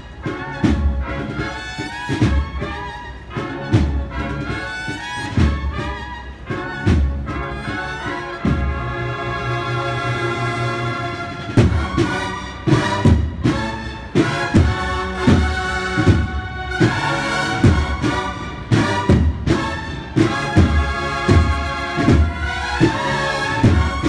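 Cornet and drum band (banda de cornetas y tambores) playing a processional march: bugles in harmony over regular drum strokes. About eight seconds in, the drums stop under a chord held for about three seconds, then the beat resumes.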